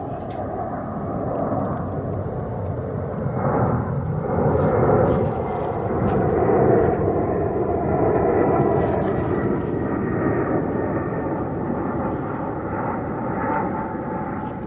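Airbus A320-family airliner on final approach with its gear down. Its jet engines give a steady roar with a few held whining tones, and the roar swells a few seconds in as the jet passes closest, then eases.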